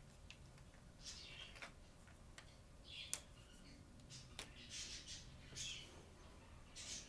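Faint marker pens being handled, with a few sharp clicks of caps and barrels, and short squeaky strokes of a felt-tip marker drawn across flip-chart paper as a letter is written, most of them in the second half.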